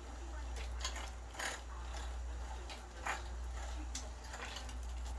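Two cats playing with a toy bird: a handful of brief scuffs and taps as it is batted about, the sharpest about a second and a half and three seconds in, over a steady low hum.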